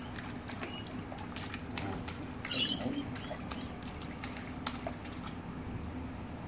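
Pool water splashing and lapping as children paddle and play, with many small scattered splashes and one louder splash about two and a half seconds in.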